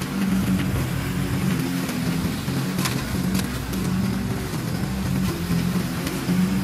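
Honda walk-behind lawn mower's single-cylinder petrol engine running steadily under load while cutting long, overgrown grass, with a few sharp ticks about three seconds in.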